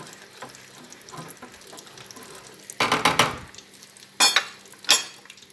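A spoon stirring simmering gravy in a pan, with a faint sizzle of chicken frying in oil underneath. A louder burst of stirring noise comes about three seconds in, then two sharp taps of the utensil against the pan.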